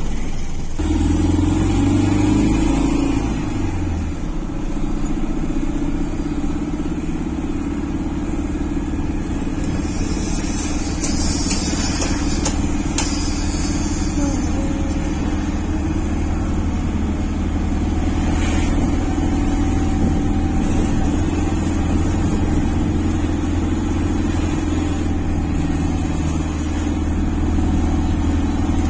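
A motor vehicle's engine running steadily at an even pitch, with a few brief clicks partway through.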